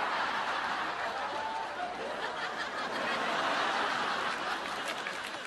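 Sitcom studio audience laughing at a punchline, a long sustained laugh that begins to tail off near the end.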